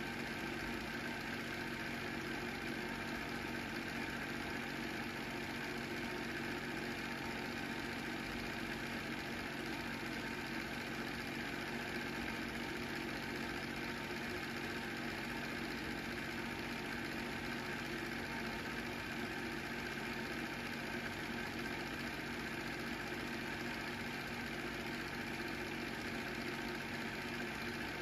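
Film projector running steadily: a constant mechanical whir and hum that does not change.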